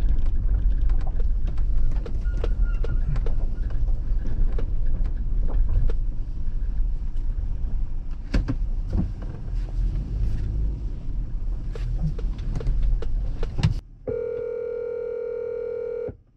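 Engine and road noise inside a Toyota SUV's cabin as it rolls slowly, with scattered clicks and knocks. About 14 seconds in, the noise cuts off and a phone ringback tone sounds once for about two seconds as an outgoing call rings.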